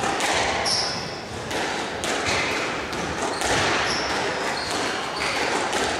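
Squash rally: the ball knocks sharply off rackets and the court walls again and again, with short high sneaker squeaks on the court floor between the hits.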